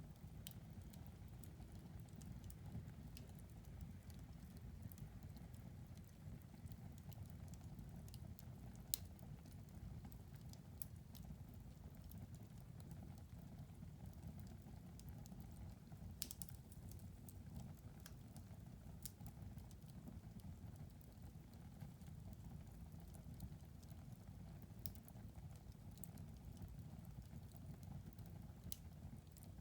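Fire crackling in a fireplace: faint scattered snaps and pops over a low, steady rumble of the burning fire, with one sharper pop about nine seconds in.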